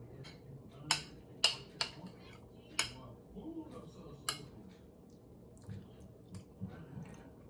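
A metal spoon clinking and scraping against a glass plate as food is scooped up: several sharp clinks over the first four seconds or so.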